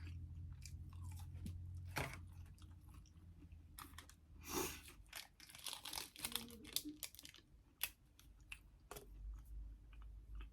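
Close-up chewing and crunching of fried food in the mouth: faint wet clicks with a few louder crunches near the middle.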